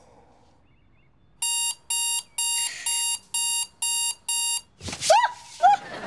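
Electronic alarm clock beeping: seven short identical beeps, about two a second. Then two short, loud rising yelps as a boy wakes with a start.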